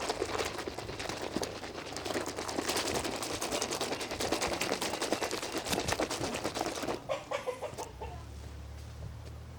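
Wet soapy foam being squished and worked, a dense crackling that thins out about seven seconds in, followed by a few short pitched sounds.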